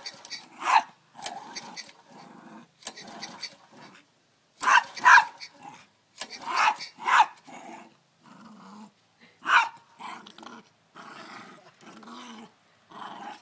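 Small white puppy barking angrily at a push lawn mower, provoked by its pull-start cord being yanked: loud sharp barks in irregular bunches, with quieter drawn-out sounds between them.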